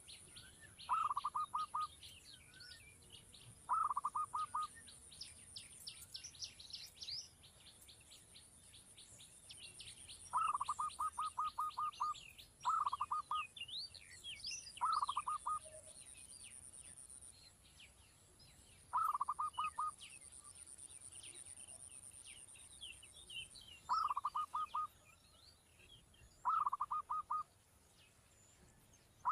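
Birds calling: a short rattle of rapid notes repeats every two to three seconds over a constant background of many high, quick chirps.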